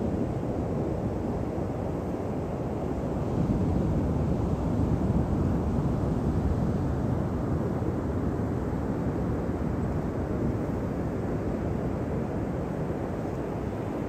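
Pacific surf breaking and washing up a sandy beach: a steady low rumble that swells for a few seconds around the middle.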